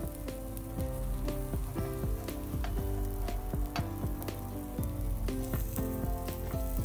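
Egg-coated bread and omelette frying in butter in a nonstick pan, sizzling steadily with scattered crackles, under background music with a melody of short notes.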